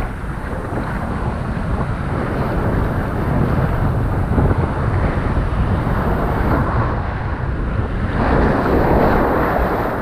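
Water rushing down an open tube water slide beneath a rider's inner tube, with wind buffeting the microphone. About eight seconds in the rush grows louder and splashier as the tube splashes down into the pool.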